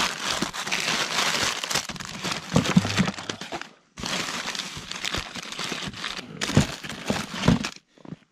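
Plastic food wrappers and packets crinkling and rustling as a hand rummages through a bag of snacks and instant noodles. It comes in two long stretches with a brief pause about halfway, and a few dull knocks among them.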